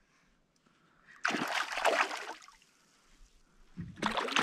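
A hooked fish thrashing and splashing at the lake surface beside a canoe: a short burst of splashing about a second in, then heavier splashing near the end.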